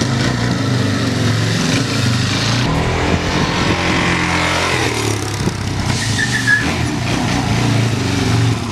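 Supermoto motorcycle engine running in second gear with a steady note while the rider locks the rear brake and slides the rear tyre across concrete, with a hiss of tyre scrub over the engine.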